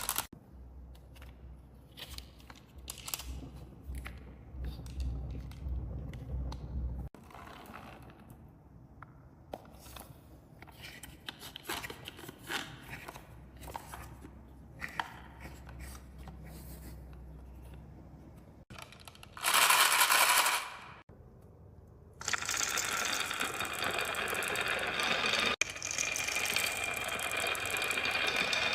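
Marbles clicking and clacking as they roll down a wooden HABA marble run, in scattered taps. About two-thirds of the way through there is a brief loud rushing burst, and near the end a steady whirring from a small toy motor sets in.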